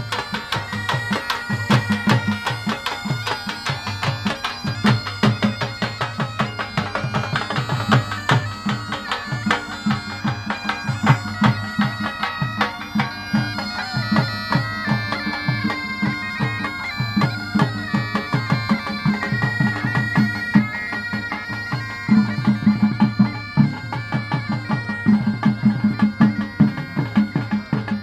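Bagpipes playing a folk jhumar tune over their steady drones, with a dhol beating a fast, even rhythm underneath; the drumbeats grow louder near the end.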